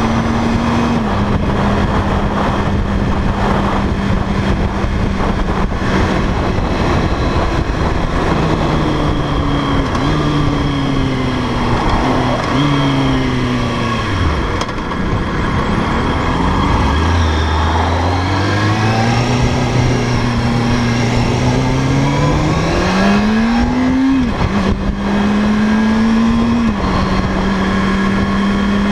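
Sport motorcycle engine under way, with heavy wind rush on the microphone. It holds a steady pitch at first, falls away with a few downshifts to its lowest about halfway through, then climbs back up under acceleration with two upshifts near the end.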